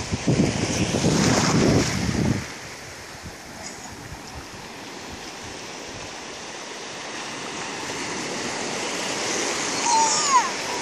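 Small sea waves washing over the shallows, with a louder rush of surf and wind on the microphone in the first two seconds, then a steady wash that swells again toward the end. Near the end a short high-pitched voice glides up and down.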